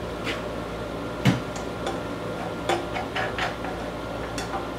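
Hands working the controls and housing of a 105cc chainsaw: a series of short clicks and knocks, one louder knock with a thud about a second in, over a steady low hum.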